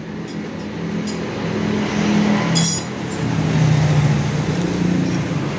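A motor vehicle engine running, growing louder over the first few seconds, with a short metallic click about two and a half seconds in.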